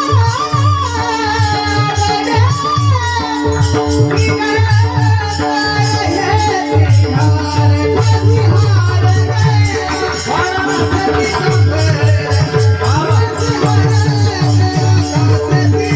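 Varkari kirtan music: a singer carries a gliding devotional melody over a steady harmonium-like drone, with a fast low hand-drum beat and jingling small cymbals keeping time.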